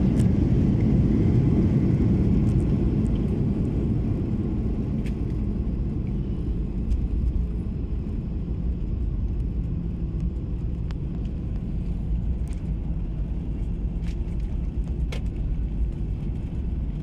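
Steady low rumble heard from inside the cabin of a jet airliner taxiing after landing, easing slightly over the first few seconds, with a few faint clicks from the cabin.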